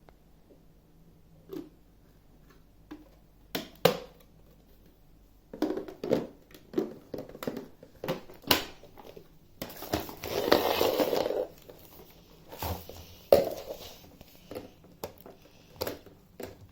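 Packaging and vacuum cleaner parts being handled: scattered clicks and knocks with short bursts of crinkling plastic or cardboard. A louder rustle lasts about two seconds, starting around ten seconds in.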